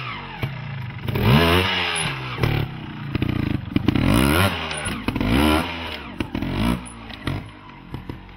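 Trials motorcycle engine blipped hard again and again, the pitch sweeping up and dropping back each time, with sharp knocks between the blips as the bike hops and lands on stone blocks.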